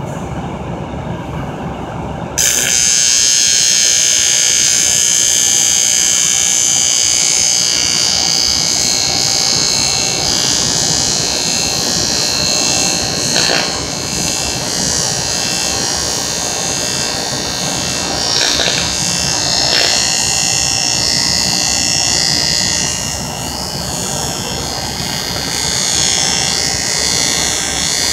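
TIG welding arc struck about two seconds in, then burning steadily as a loud buzzing hiss with slight dips; a low hum comes before it.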